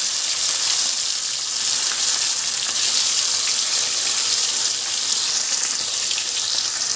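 Fish pieces coated in turmeric and salt deep-frying in hot oil in a kadai: a steady, loud sizzle of bubbling oil.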